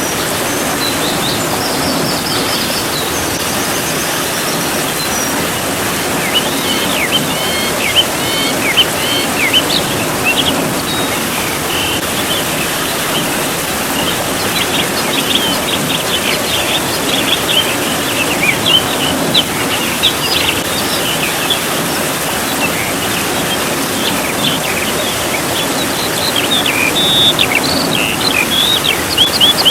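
Steady rain with birds chirping over it: many short, high chirps, a few at first and many more from about six seconds in.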